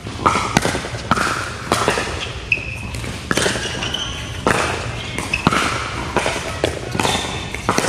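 Pickleball rally: paddles striking a plastic pickleball, a string of sharp pops roughly every half second to second, with short high squeaks of sneakers on the court, echoing in a large indoor hall.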